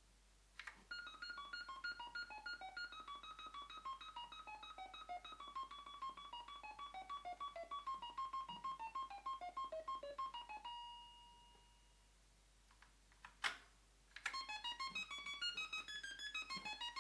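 Commodore SX-64's SID sound chip playing organ tones in the Organ demo program, quick runs of short notes stepping mostly downward in pitch. About two-thirds through, the notes stop for a held tone and a short pause broken by one sharp click, then resume in busier runs.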